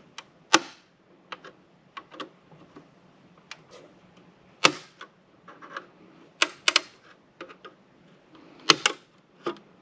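A flathead screwdriver prying at the seam of the Arcadyan ARC-XCI55AX cube gateway's plastic case, levering the side panel's clips. It gives irregular sharp plastic clicks and light scrapes, the loudest about half a second in, midway, and near the end.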